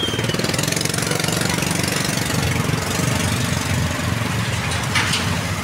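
An engine idling steadily with a low, even throb, with a brief clatter about five seconds in.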